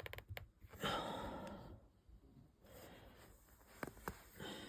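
A person sighing, a breathy out-breath about a second in. A few small sharp clicks of plastic mini building blocks being handled and pressed together come at the start and again near the end.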